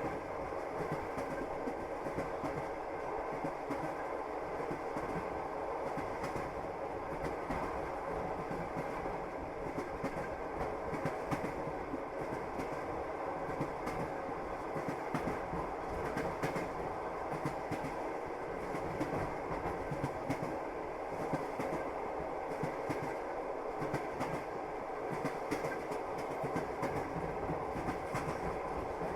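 Passenger train carriage running along the track, heard from inside: a steady rumble with the wheels clacking over the rail joints.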